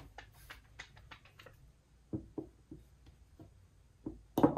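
A string of light clicks and taps as a glass perfume bottle and its cap are handled, with a sharper knock about four and a half seconds in.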